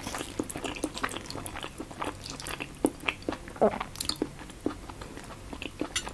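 Close-up eating sounds: irregular wet chewing and mouth clicks on okra and meat stew, with light clicks of a metal spoon against the plate.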